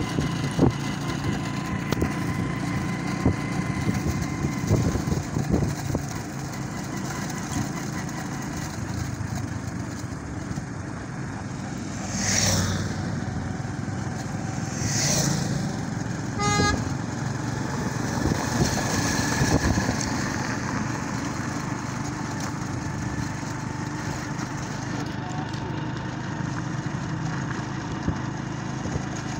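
A motor vehicle running steadily along a road, heard from on board, with engine hum and road and wind noise. A short horn toot comes a little past the middle.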